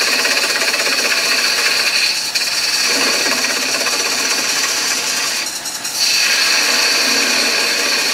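A 3/8-inch spindle gouge cutting into a spinning hard maple blank on a wood lathe: a steady scraping cut that eases off briefly twice as the tool lifts from the wood.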